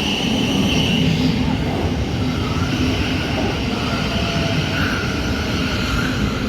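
Electric train running, a steady rumble with a high whine.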